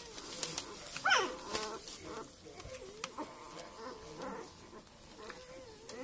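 Five-day-old Northern Inuit wolfdog puppies squeaking and whimpering while nursing, with one sharp squeal that rises and falls about a second in, then thinner wavering whines.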